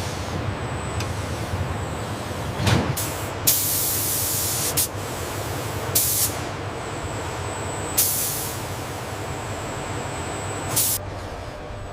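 Industrial forming machinery running with a steady low hum, punctuated by a thump and then repeated bursts of pneumatic air hissing: one long hiss a few seconds in, and shorter ones about every two seconds after.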